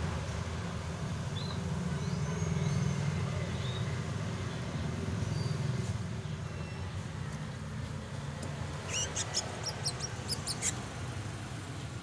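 Domestic canaries chirping: scattered faint short calls, then a quick run of sharp chirps about nine seconds in lasting a couple of seconds, over a steady low rumble.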